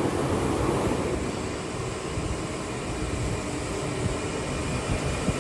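Fully automatic corrugated box folder-gluer and stitching machine running steadily, a continuous mechanical rumble and clatter.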